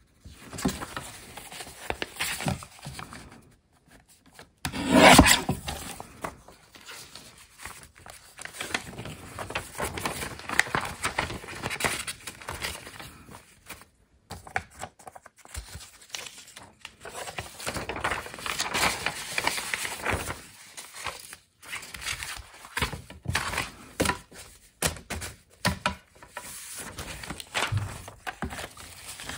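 Paper being rubbed, scraped and handled in irregular strokes with short pauses, with a louder rustle about five seconds in.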